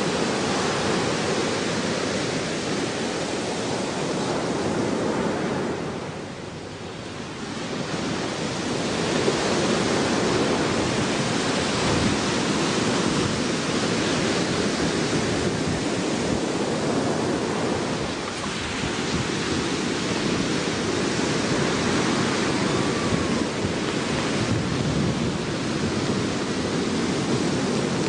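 Ocean surf and wind on the microphone: a steady rush with a short lull about six seconds in.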